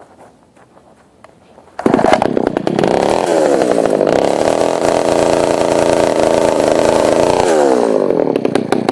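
A chainsaw starts suddenly about two seconds in and runs loud and steady at full speed for about six seconds. It then winds down with a falling pitch and stops near the end.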